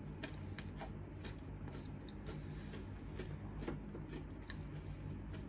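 Close-up chewing and mouth sounds: irregular soft clicks and smacks of food being chewed, over a steady low hum.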